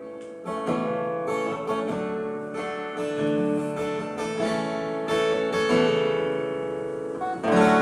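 Solo acoustic guitar playing a slow chord introduction, its notes ringing and overlapping.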